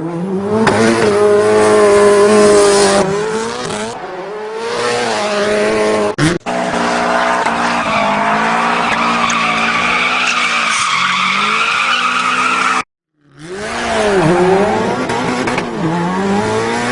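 Pets' long drawn-out calls, gliding up and down in pitch, with rising-and-falling arcs near the end; the sound cuts out briefly about six seconds in and again for half a second near thirteen seconds in.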